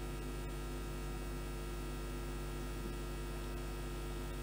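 Steady electrical mains hum picked up by the recording microphone, a constant low buzz with faint hiss, and two faint clicks about half a second apart near the start.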